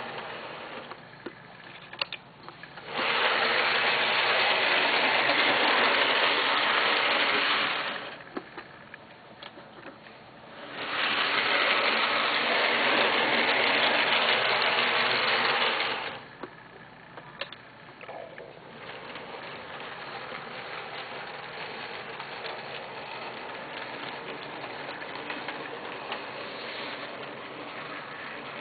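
Brass model steam locomotive running along the track, its small electric motor and gears whirring, with faint clicks from the rails. Twice, about three seconds in and again about eleven seconds in, a loud hiss comes in abruptly, holds for about five seconds and cuts off.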